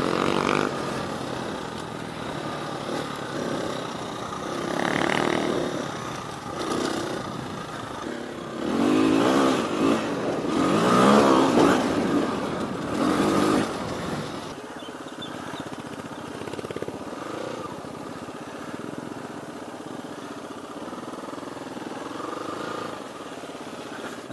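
Husqvarna FE350 dirt bike's single-cylinder four-stroke engine being ridden, revving up and easing off several times, then running quietly at low throttle for about the last ten seconds.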